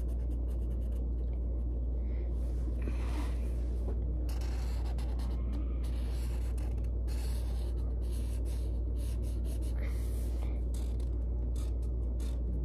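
Felt-tip marker rubbing on notebook paper in quick, irregular strokes as a drawing is coloured in, over a steady low hum.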